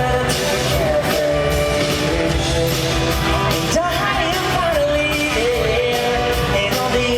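Live pop-rock band with a male lead vocal singing over drums and guitar, heard from the audience through a hand-held recorder.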